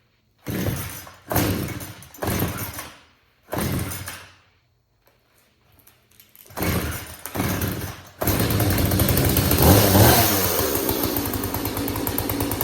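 Husqvarna 240 two-stroke chainsaw being pull-started, being tested after a new purge bulb and clean air filter: six short bursts of cranking, four then a pause then two, before the engine catches about eight seconds in and keeps running. It is revved up and back down once, about ten seconds in.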